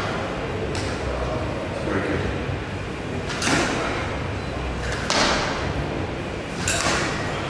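Single-leg hop landings of trainers on a wooden gym floor: a sharp thud with a short scuff that fades away, repeating every second and a half or so, the last three louder, over a steady low room hum.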